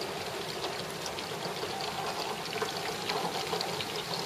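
Heavy rain heard through glass: a steady, subdued hiss of the downpour with many small ticks of drops.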